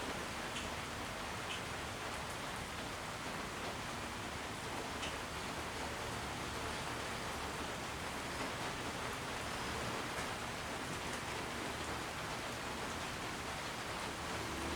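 Steady rushing air noise from a 56-inch Canarm industrial ceiling fan running, with no clear rhythm or blade beat.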